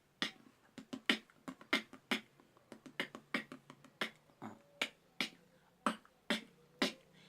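Beatboxer's mouth percussion: a quick series of sharp K snare clicks, about three to four a second and slightly uneven, demonstrating the 'k' sound that his baby-cry effect is built on.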